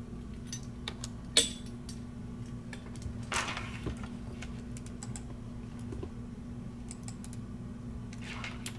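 Irregular light clicks and taps, one louder click about a second and a half in, over a steady low hum.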